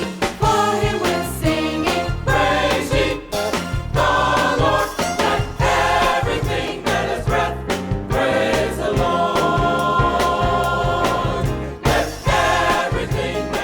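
Gospel music with a choir singing over a steady beat.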